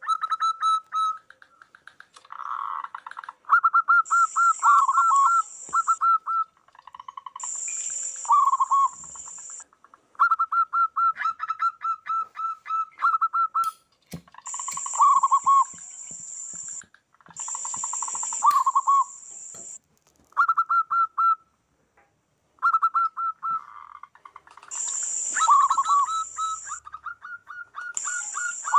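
Several zebra doves (perkutut) cooing and answering one another, each song a quick run of short, repeated coo notes, with two birds at slightly different pitches overlapping. A high hiss comes in bursts of about two seconds, several times.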